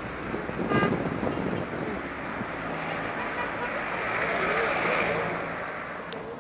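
Rushing water in the rain-swollen, canalized Arrudas river, mixed with traffic noise. A brief pitched sound comes just under a second in, and a vehicle swells past, loudest about four to five seconds in, then fades.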